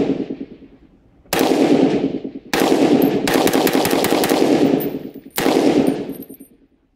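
Ruger 7.62×51mm rifle fired four times in slow semi-automatic succession, each shot ringing out for about a second. The last shot, near the end, empties the D&H Tactical 10-round magazine under test, and the bolt locks back.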